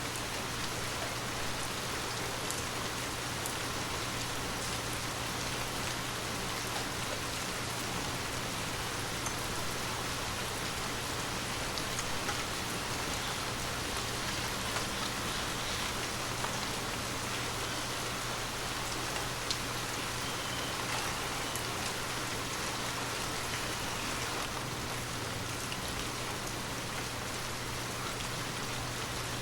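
Gentle steady rain, a continuous hiss with scattered individual drop ticks, over a faint low steady hum.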